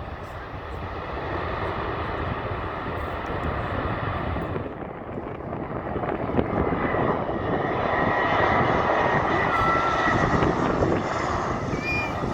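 Jet airliner's engines passing close: a broad rushing noise that grows louder, with a steady high whine joining about halfway through.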